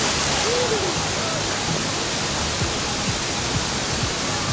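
Steady rush of waterfalls pouring into a pool, with the splash of a person jumping into the water dying away at the start.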